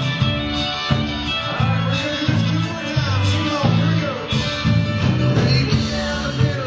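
Live country-rock band playing: electric guitar over bass and drums, with sliding, bending notes partway through. Heard from the audience in a large hall.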